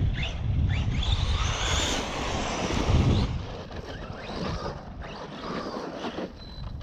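Brushless motor of an Arrma 3S radio-controlled monster truck whining up and down in pitch as the throttle is worked, with tyre noise on asphalt, louder for the first three seconds and then easing off.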